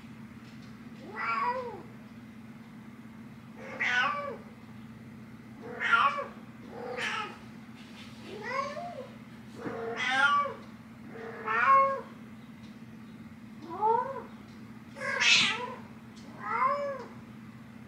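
Domestic cat meowing insistently at a closed door to wake the person inside: about ten drawn-out meows, each rising then falling in pitch, one every one to two seconds, with the loudest and shrillest a little past the middle.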